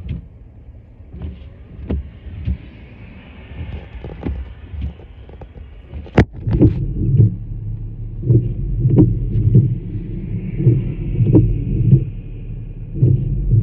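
A vehicle driving, heard from inside: a low road rumble with scattered knocks and a sharp click about six seconds in, after which the rumble grows louder and pulses unevenly.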